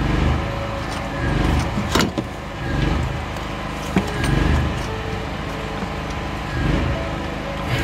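Generator running, a steady drone that swells and fades every second or two. A couple of sharp clicks, about two and four seconds in, come from parts being handled.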